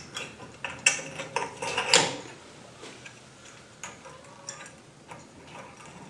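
Glass light shade and the metal spring clamp of a ceiling fan light kit clicking and clinking as the shade is worked out of its holder. There are several sharp clicks in the first two seconds, then fainter scattered taps.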